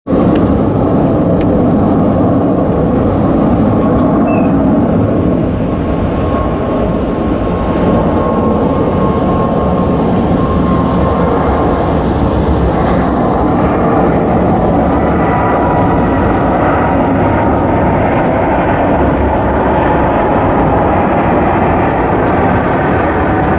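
Boeing 747-8 freighter's four GEnx jet engines at takeoff climb power, a loud steady roar with a faint whine slowly falling in pitch as the aircraft passes overhead.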